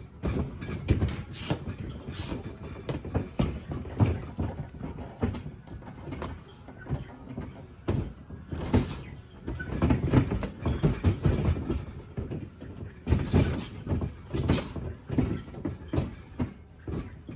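Boxing gloves landing in sparring: irregular sharp slaps and thuds, some in quick flurries, over a steady low rumble.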